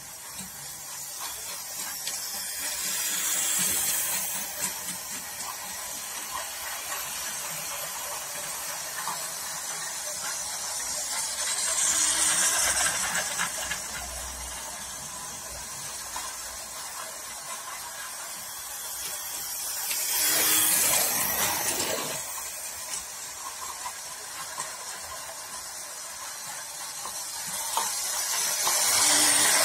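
Toy train running on plastic track, its small motor and wheels whirring with a hissing sound that swells louder and fades about every eight or nine seconds as it comes round the loop.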